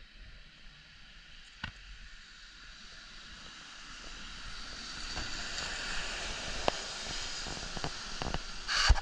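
Road traffic on a city street: a steady rush of noise that swells gradually over several seconds, as of a vehicle passing close by. A few clicks, and a loud thump near the end.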